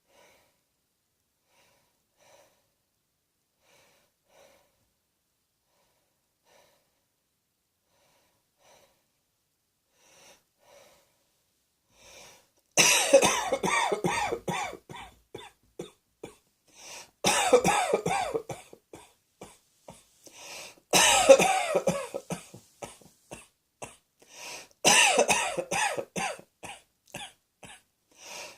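A person coughing in hard, repeated fits. For about the first twelve seconds there are only faint small sounds; then come four bouts of rapid coughing, each opening with a loud cough and trailing off in a string of shorter ones.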